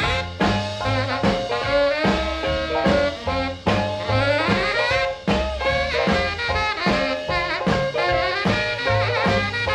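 Instrumental break in a rhythm-and-blues song: horns play over a steady bass line and drums, with no singing.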